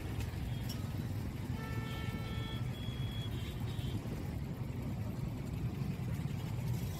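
Steady low rumble of road traffic. About a second and a half in, one short steady tone sounds for about a second.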